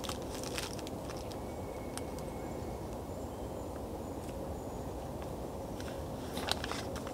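Small clicks and rustles of pocket-sized kit items and clothing being handled, a few near the start and more near the end, over a steady low background rumble.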